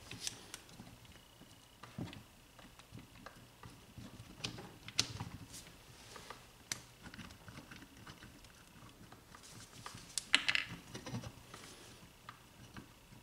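Starter motor housing being wiggled off its gear housing by hand: scattered light clicks and knocks of metal parts. About ten seconds in comes a brief, louder clatter of clicks as the armature pulls out and the spring-loaded brushes pop out of their holders.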